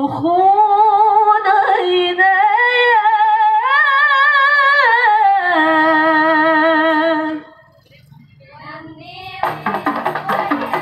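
A solo female voice sings a long, ornamented qasidah phrase with no accompaniment, gliding up and down in pitch. It breaks off about seven seconds in, and near the end the group's hand-held frame drums (rebana) and the music come in together with quick, repeated beats.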